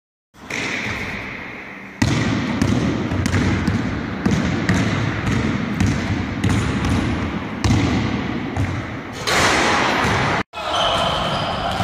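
Basketball bouncing on a hardwood gym floor, sharp irregular thuds about one to two a second, each with a short decaying tail. Near the end the thuds give way to a hiss, a brief cut to silence, and then a different, busier sound.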